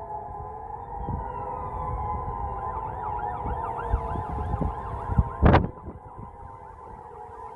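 Distant Grangemouth industrial site sirens during their test: several steady tones, with a fast rising-and-falling siren sweeping over them from about halfway in. Wind buffets the microphone throughout, with one loud gust about five and a half seconds in.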